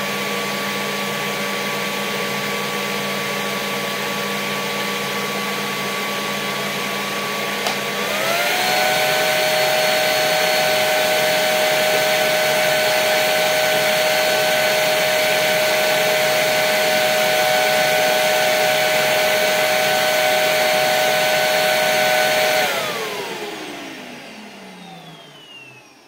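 Vorwerk VK135 vacuum cleaner motor running steadily on its low setting while drawing air through an anemometer at its intake. A click about eight seconds in, and the motor whine rises in pitch and gets louder as it goes to medium. Near the end it is switched off and spins down with a falling whine.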